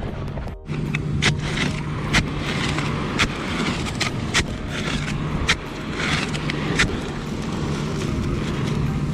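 White PVC sand-spike rod holder being pushed and twisted down into coarse, pebbly beach sand: gritty scraping and crunching, with a sharp knock about once a second, over a steady low hum.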